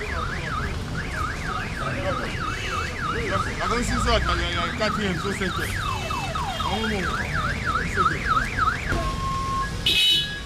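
Vehicle siren yelping: a fast rising-and-falling wail, about four sweeps a second, with a brief break in the middle. Near the end it switches to a short steady tone, then a short loud blast.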